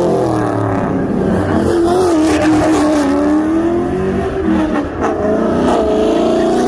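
A car engine held at high revs, its pitch rising and falling as the throttle is worked, as in a burnout or slide.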